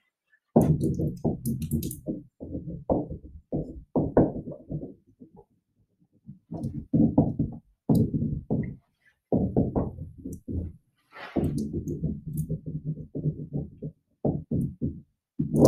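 Dry-erase marker writing on a whiteboard: scratchy strokes in short bursts, with brief pauses between them.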